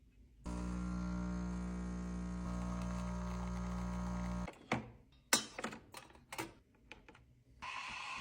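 Breville Bambino Plus espresso machine's vibratory pump running with a steady buzzing hum for about four seconds, then cutting off. A few sharp clicks and knocks follow, and a hiss starts near the end.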